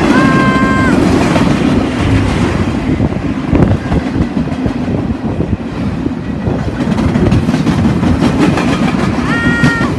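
Freight train of double-stack well cars rolling past at close range: a loud, steady rumble with clickety-clack of wheels over the rail joints. Brief high-pitched tones ring for under a second at the start and again near the end.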